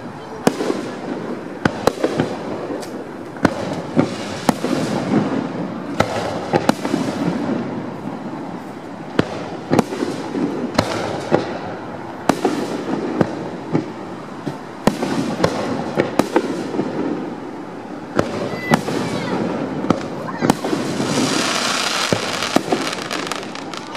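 Aerial fireworks shells bursting one after another, sharp bangs coming irregularly about every second, over a murmur of crowd voices. A longer hissing spell comes near the end.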